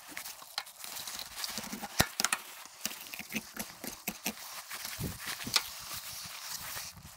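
Irregular knocks and taps of a knife and fish on a cutting board during the filleting of a whitefish, with sharp knocks about two seconds in and again past the middle.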